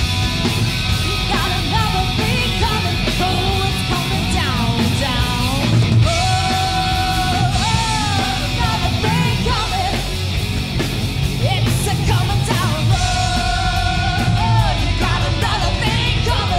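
Live hard-rock band playing loud, with distorted electric guitars, bass and drums under a female lead vocalist singing hard; she holds two long high notes, one near the middle and one near the end.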